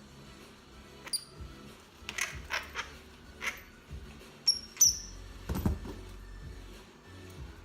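A squirrel monkey giving short high squeaks, once about a second in and twice more near the middle, amid brief rustling and knocking from play, with one heavier thump just after the squeaks.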